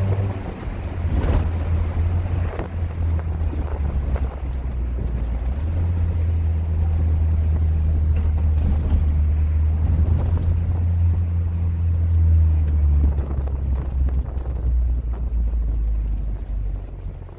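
Hyundai Tucson 2.0 engine running through an exhaust with the rear silencer removed: a steady, deep, low drone.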